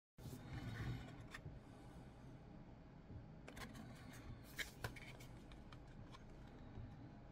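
Faint rustle of fingers rubbing on a small cardboard box as it is handled and turned over, with a few light clicks and taps between about three and a half and five seconds in.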